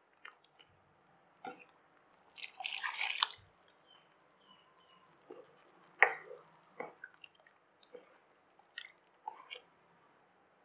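Ladle stirring thick sambar in a steel pot: scattered wet squelches and drips, a longer sloshing stretch about two and a half seconds in, and a sharp knock about six seconds in.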